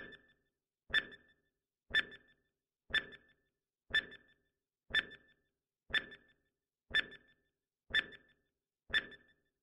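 Countdown timer sound effect: a short, sharp tick with a brief ringing tone, repeated ten times, once a second, as the clock counts down.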